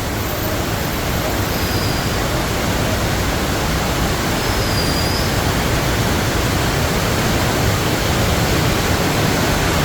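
Very heavy monsoon rain pouring down in a steady, dense rush.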